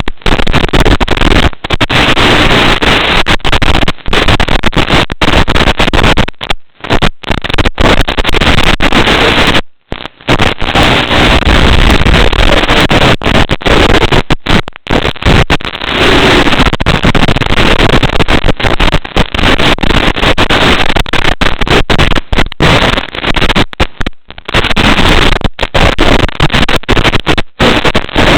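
Loud, harsh, steady noise from an FPV racing drone in flight, cutting out briefly many times, most deeply about ten seconds in.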